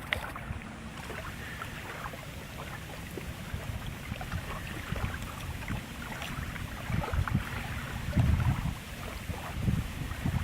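Wind buffeting the microphone in uneven low rumbles that grow stronger near the end, over a scatter of small crackles and crunches.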